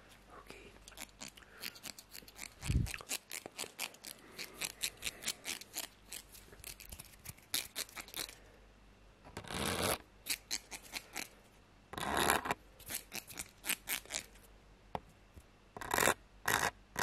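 A comb worked close to the microphone in a rapid run of short scraping strokes, several a second, with two longer rasping sweeps near the middle.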